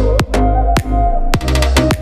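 Background electronic pop music with a steady drum-machine beat, heavy bass and a synth melody, no vocals.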